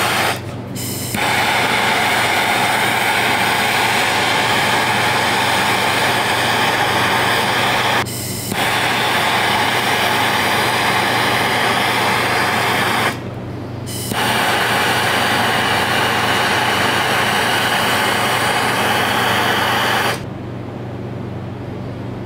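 Handheld gas torch burning with a steady loud hiss while it heats a copper cable lug for soldering. The hiss breaks off briefly three times and stops about 20 seconds in, leaving a low steady hum.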